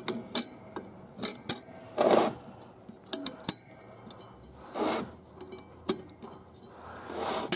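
Sharp metallic clicks and scrapes of a steel snap ring being worked into its groove on a 700R4 transmission clutch drum, with a few short rubbing sounds between.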